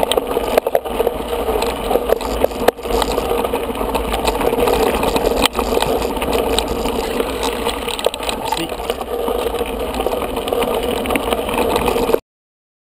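Mountain bike rolling over a gravel road, picked up by a camera riding on the bike or rider: a steady rattling rumble of tyres and frame with many sharp knocks. It cuts off abruptly near the end.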